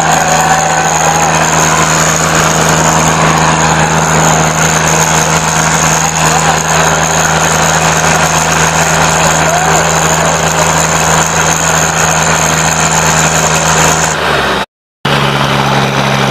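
Diesel tractor engines running steadily under heavy load in a tug-of-war, a loud constant drone, with crowd voices mixed in. Near the end the sound drops out for a moment and comes back with a slightly different engine note.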